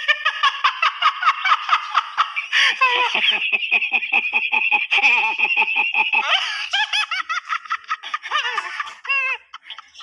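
Men laughing hard, a rapid run of ha-ha-ha cackles with a long high-pitched laugh held in the middle.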